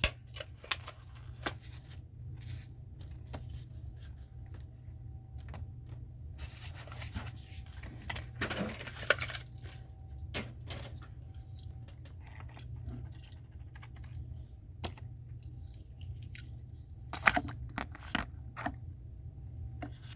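Hot Wheels blister pack being torn open by hand: cardboard card tearing and the plastic blister crackling, with scattered sharp clicks. There is a longer tearing stretch near the middle and a cluster of clicks near the end, over a steady low hum.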